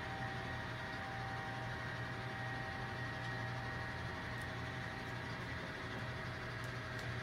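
Model train locomotive running on the layout: a steady hum with a few constant high whining tones from its motor and gears.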